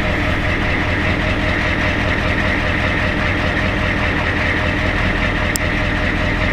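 Ford 7.3 IDI V8 diesel idling steadily at low idle, still cold just after a cold start, heard from inside the truck's cab.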